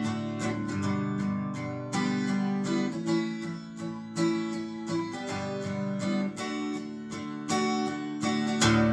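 Background music: strummed acoustic guitar playing a country tune, with no singing yet.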